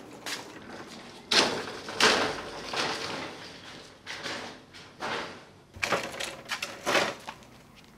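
Skilsaw table saw on its red steel stand, newly fitted with caster wheels, being rolled across concrete: the casters rumble and the stand and saw rattle, with loud knocks about a second and a half and two seconds in and again around six and seven seconds in.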